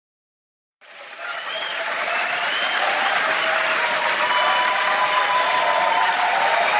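Crowd applauding and cheering, fading in about a second in and then holding steady, with a few voices and whistles rising above the clapping.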